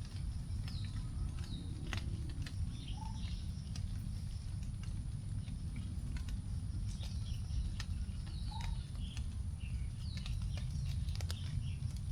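Rain-forest drip after a shower: the last raindrops falling onto leaves in scattered sharp ticks, while birds call. One bird gives a short low note three times, a few seconds apart, and others give quick falling chirps higher up, over a steady low background.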